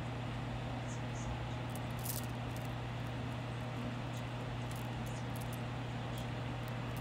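Steady low hum and hiss, with faint, light ticks now and then as the charms on a silver charm bracelet shift against each other in the hand.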